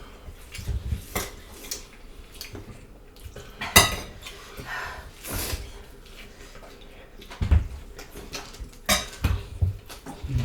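Cutlery and dishes clinking at a meal: scattered sharp clinks of spoons or forks against plates, the loudest about four seconds in and again near nine seconds, with soft low thumps between.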